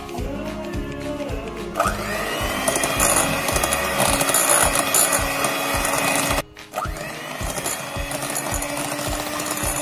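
Electric hand mixer beating whipped cream with cocoa water in a glass bowl, its motor running with a steady whine. It starts about two seconds in, stops briefly around six seconds, then runs again. Background music with a steady beat plays underneath.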